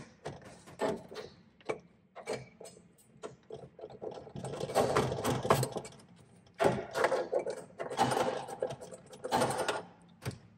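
Socket ratchet wrench clicking as it runs 13 mm nuts down on mounting studs, drawing a plate heat exchanger up evenly against its mount. A few scattered clicks come first, then several longer runs of rapid ratcheting begin about four seconds in.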